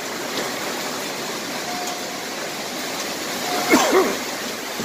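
Thunderstorm wind gust driving heavy rain and hail, a steady rushing noise. Near the end come two short, high cries.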